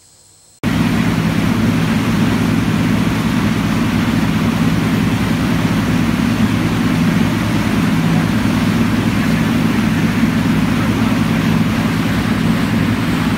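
Boat engine running steadily under way, with a loud rush of water and wind noise; it starts abruptly about half a second in.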